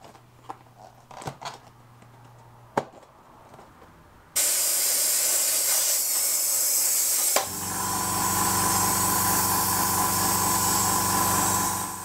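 A few light clicks, then about four seconds in a sudden loud hiss of compressed air blasting into the tubeless tyre. About three seconds later a compressor motor starts running under the hiss, and both stop near the end. The tyre will not seat, so air and sealant escape at the bead.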